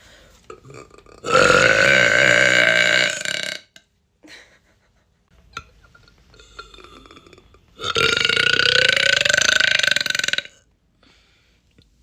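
A woman belching loudly twice, two long drawn-out voiced burps of about two and a half seconds each, the second starting about four seconds after the first ends.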